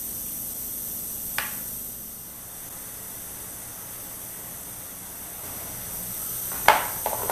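A steady hiss, with a small click about a second and a half in and a sharper, louder knock near the end as the vise grip holding the cutting blade is handled.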